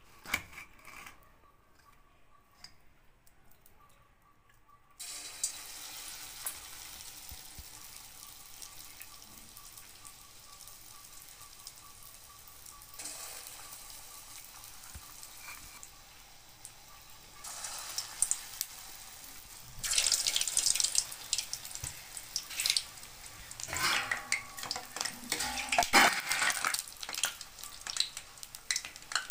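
Paal bun batter balls deep-frying in a steel kadai of hot oil: a steady sizzle starts suddenly about five seconds in. It grows louder and crackles toward the end, while a metal slotted spoon stirs and turns the buns, knocking and scraping against the pan. Before the sizzle, faint soft squelching of a hand working the batter in a steel bowl.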